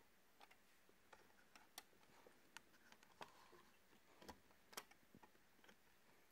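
Faint, irregular small clicks and taps of the CPU socket's metal retention plate and lever being handled and latched on the motherboard.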